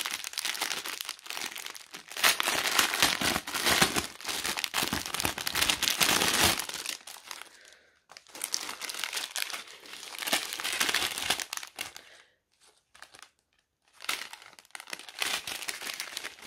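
Cellophane wrapping and small plastic bags of diamond-painting drills crinkling as they are handled, in three long stretches of rustling with a short pause about halfway and a silent gap of about two seconds before the end.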